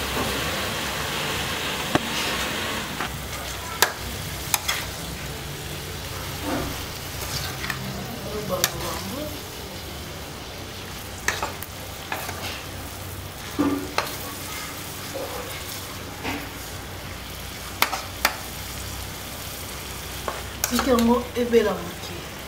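Food sizzling steadily over heat, louder in the first few seconds, with scattered sharp clicks and knocks of utensils.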